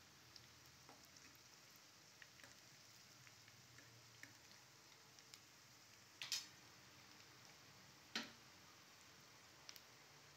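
Small whole potatoes frying in oil in a pan: a faint steady sizzle with scattered little crackles, and two louder clicks about six and eight seconds in.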